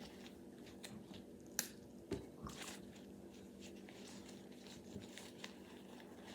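Faint handling noises of a soft squishy toy being worked on by hand: scattered small clicks and rustles, with a sharp click about one and a half seconds in and a soft thump just after.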